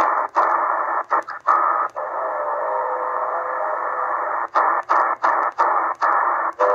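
XHDATA D-808 shortwave receiver in upper sideband, its speaker hissing with static while it is stepped down through the band. The audio cuts out briefly about a dozen times, once with each tuning step, as the receiver's soft mute acts. A faint steady whistle of a carrier comes through in the middle and again near the end.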